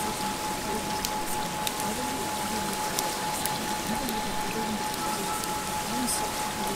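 A steady 852 Hz carrier tone held over an even bed of rain-like hiss, with faint low rising-and-falling sounds about once a second beneath it.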